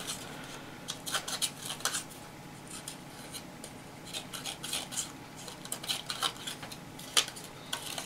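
Small scissors of a stainless-steel multitool snipping through paper: a run of short, irregular snips, the blades cutting cleanly.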